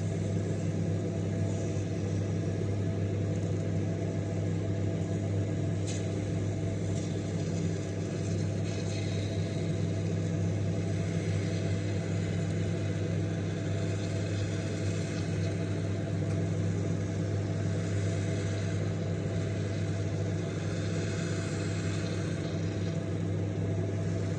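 Microwave oven running with its steady, even hum. Faint clicks and a fizzing hiss come and go over it, the sort of sound grapes make when they spark inside.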